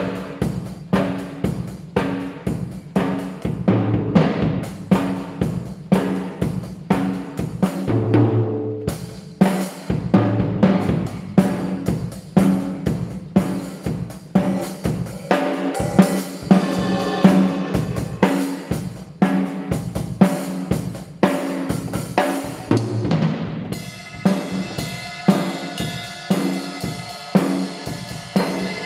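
Acoustic drum kit played with sticks in a steady beat, with a run of lower tom hits about eight seconds in and a cymbal ringing over the beat from about three-quarters of the way through. The kit is being played to try out a newly fitted 12-inch Remo drumhead.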